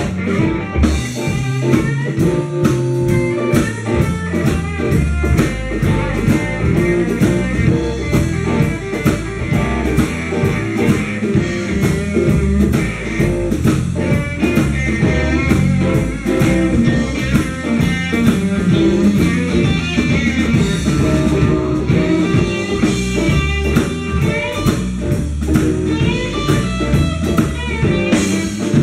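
Live blues band playing, with guitar to the fore over a drum kit keeping a steady beat.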